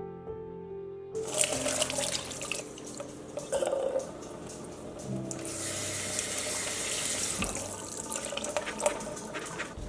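Water running from a kitchen tap into a sink, steadiest in the middle, with small clicks and clatters, over soft background music. It starts about a second in.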